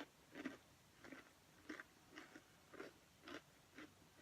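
A person chewing thin, crispy pretzel crackers (Townhouse Flipsides Thins), with faint crisp crunches about twice a second.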